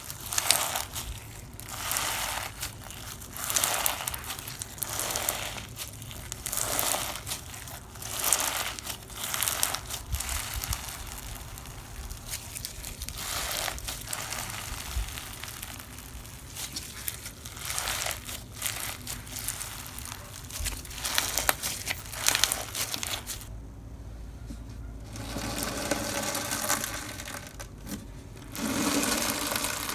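Slime being squeezed and kneaded by hand, a squish about every second and a half. A short lull comes about three quarters of the way through, then the handling turns busier.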